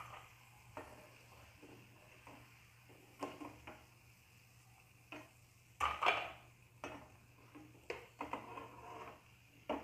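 Perforated metal skimmer knocking and scraping against a frying pan as fried jalebis are lifted out of the hot oil, in irregular clinks, the loudest about six seconds in.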